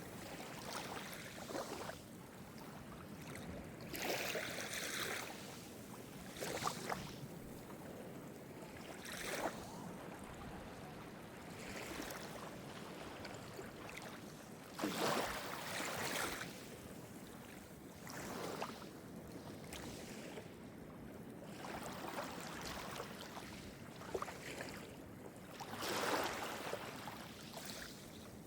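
Calm Mediterranean surf: small waves breaking and washing up the shore every few seconds at an uneven pace, over a steady hiss of sea.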